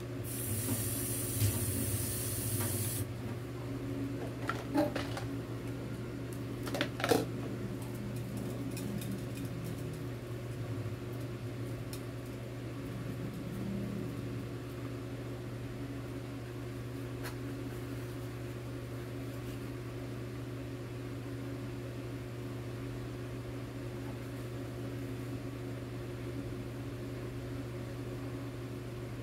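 A steady machine hum made of a few fixed low tones, like an appliance motor or fan, runs throughout. A high hiss fills the first few seconds and cuts off suddenly, and a few light knocks come around five and seven seconds in.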